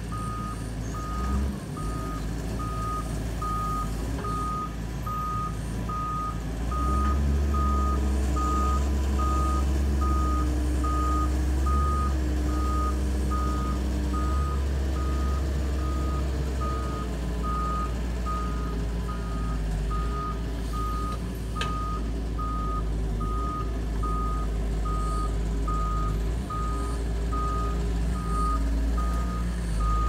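Doosan DX140W wheeled excavator's backup alarm beeping in a steady, evenly spaced series while it moves, over its diesel engine running. The engine gets louder from about seven seconds in, then eases off again after about seventeen seconds.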